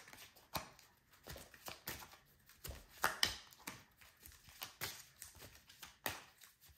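A deck of tarot cards being shuffled by hand in an overhand shuffle: a run of soft card slaps and flicks, about two to three a second, with a louder pair about three seconds in.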